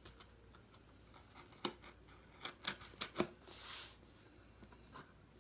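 Knife working at the packing tape on a cardboard box: scattered faint clicks and scrapes of the blade and fingers on the cardboard, with a short rasp of tape being slit about three and a half seconds in.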